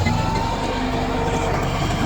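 Komatsu D68 crawler bulldozer working, its diesel engine running steadily with a rapid metallic clatter from the tracks and a faint squeal in the first second.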